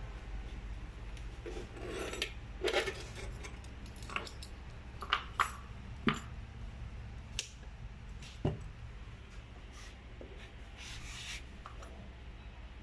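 Objects being handled: scattered light clicks, knocks and rubbing over a steady low hum.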